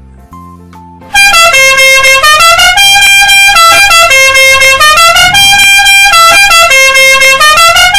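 Multi-tone "telolet" bus horn playing a melody of stepping notes, starting about a second in and repeating its short tune about three times. It is very loud.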